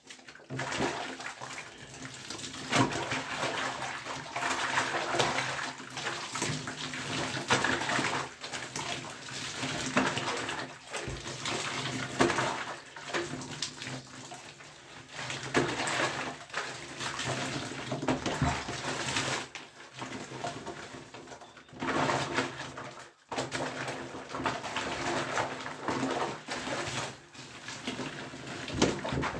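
Water splashing and soapy skin being scrubbed as a person washes himself in a bath, in uneven surges with short pauses.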